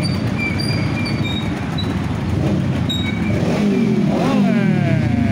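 Motorcycles and scooters riding slowly past in a line, engines running at low revs. About four seconds in, one passes close by and its engine note falls as it goes.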